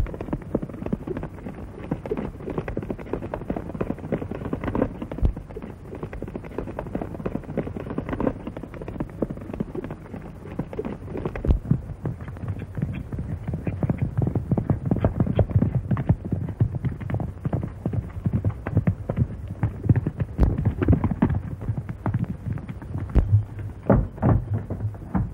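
Horse galloping: fast, rhythmic hoofbeats on open ground, dull and muffled on an old film soundtrack, with a few heavier thumps near the end.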